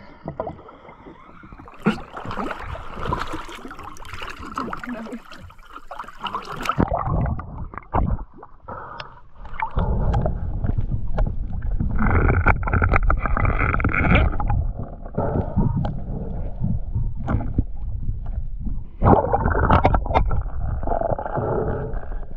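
Water splashing as a diver slides off a jet ski into the sea, then muffled underwater sloshing and a low rumble of water against the microphone while he swims, with louder swells twice near the middle and end.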